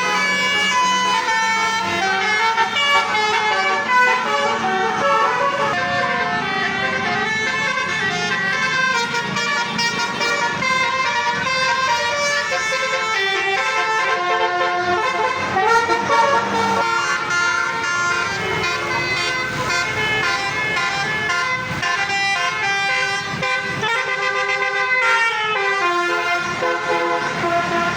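Basuri musical air horns on a bus playing tunes nonstop, several tones at once stepping from note to note, over the buses' running engines.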